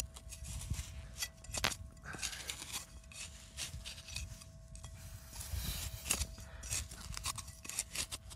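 Digging in soil: a tool scraping and cutting into the earth of a deep hole, an irregular run of scrapes and small clicks, with a faint steady tone underneath.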